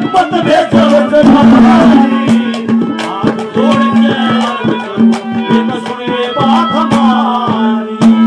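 Live Haryanvi ragni folk music, instrumental stretch: a steady held drone note under fast drumming and rattling, jingling percussion.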